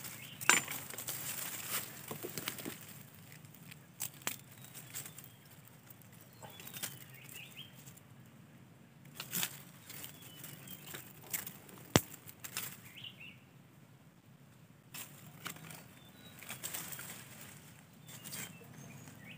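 Dry bamboo leaves and twigs rustling and crackling in irregular bursts as they are handled and pushed into the leaf litter around a ground snare, with one sharp crack about twelve seconds in.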